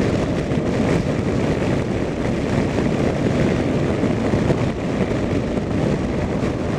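Steady riding noise from a motorcycle on the move: wind buffeting the microphone over the engine's running drone.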